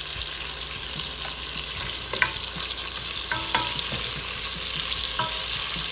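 Sausage pieces sizzling in hot oil in a pot while a wooden spatula stirs them. A few sharp clinks of the spatula against the pot ring briefly.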